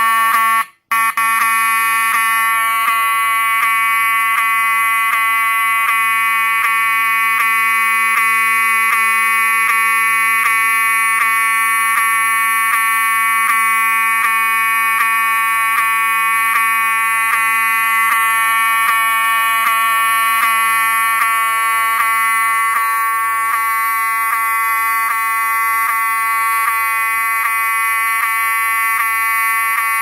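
Wheelock 7002T-24 horn strobe sounding, its hammer vibrating the horn's disc into a steady, buzzing honk. It starts about a second in and holds without a break, very loud and clean, the sound of a healthy unit.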